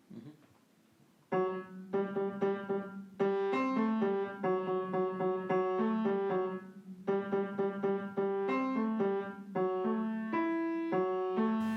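Background piano music: a quick repeating figure of notes over a held low note, starting about a second in after a moment of near silence.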